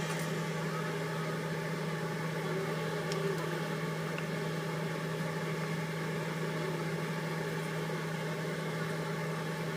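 Steady low machine hum with an even hiss over it, holding level throughout, from a kitchen appliance running while soup cooks in a saucepan on the hob.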